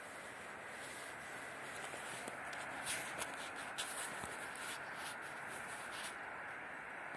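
Faint outdoor trackside ambience: a steady hiss that grows a little louder after a second or two, with scattered short clicks and rustles close to the microphone.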